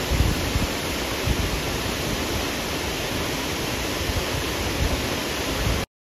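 Steady rush of flowing water, a river or waterfall, with low uneven rumbling underneath; it cuts off suddenly near the end.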